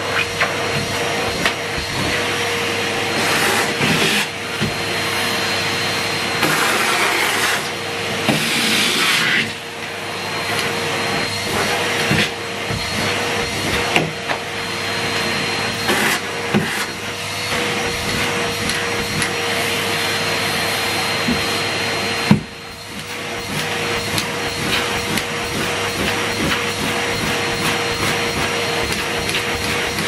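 Numatic Henry Turbo cylinder vacuum cleaner running, a steady motor whine over the rush of suction as the hose tool works the carpet edge. Scattered knocks sound throughout, with one sharp knock about 22 seconds in, after which the sound briefly drops.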